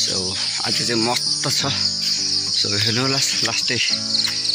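Insect chorus making a steady high-pitched buzz throughout, heard under a man talking.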